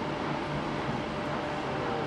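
Passenger train pulling away down the track, a steady rumble with a faint humming tone.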